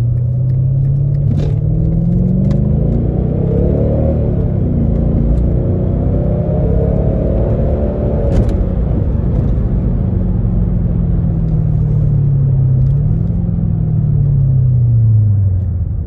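Mercedes-Benz W211 E500's V8 with its mufflers deleted (resonators kept), heard from inside the cabin under acceleration. The engine note climbs, dips about halfway through, holds steady, then falls away near the end as the car eases off.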